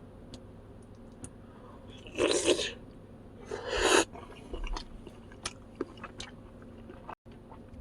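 Close-miked eating: two loud crunching bites about two and three and a half seconds in, followed by quieter chewing clicks.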